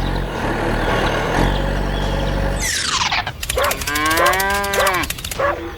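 A small engine runs steadily and stops about two and a half seconds in. A quick falling whistle follows, then a long cow moo that rises and falls in pitch.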